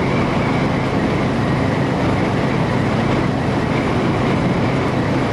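Steady drone of a semi truck's engine and tyres at highway speed, heard inside the cab.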